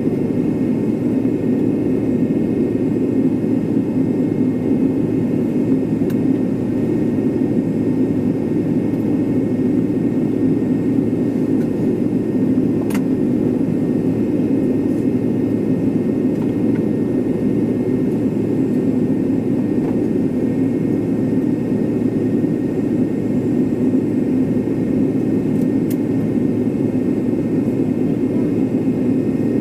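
Steady cabin rumble of an MD-83 airliner's aft-mounted Pratt & Whitney JT8D turbofans at low taxi thrust, heard from a window seat right beside the engine, with a faint steady whine above the rumble.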